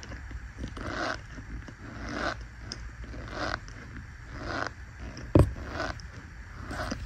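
Fingers pressing and squeezing into a pile of fine white powder, making squeaky crunches roughly once a second. A single sharp knock comes a little over five seconds in.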